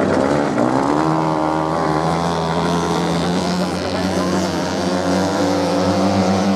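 Several off-road racing motorcycle engines revving at once. One climbs in pitch about a second in as a bike accelerates, over a steady lower drone from the others.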